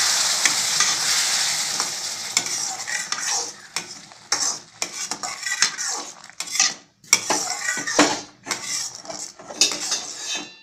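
Boiling water poured onto semolina roasted in ghee in a metal kadai: a loud hiss of sizzling that fades over the first four seconds or so. After that, a metal ladle scrapes and stirs against the pan in quick, irregular strokes as the rava takes up the water.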